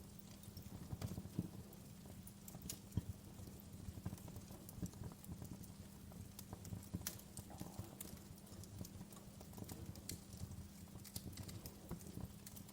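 Wood fire burning in a fireplace: logs crackling with irregular pops and snaps, the sharpest about three seconds in, over a low steady rumble.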